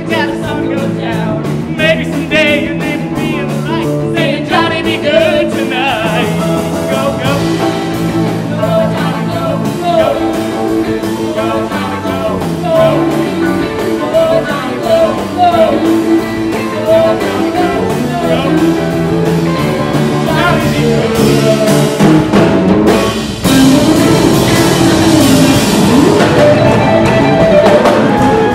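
Rock and roll band playing an instrumental passage: a lead melody line that bends and wavers over a steady bass and rhythm accompaniment, getting louder about two-thirds of the way through.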